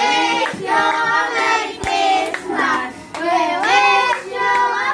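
Group of children singing a Christmas carol together, with one sharp click or clap about two seconds in.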